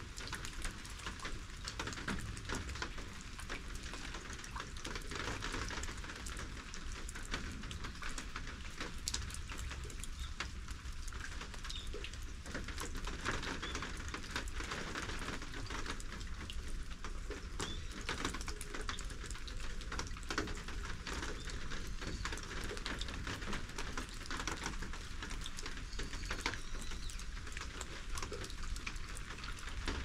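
Steady rain falling, with many separate drops striking close by.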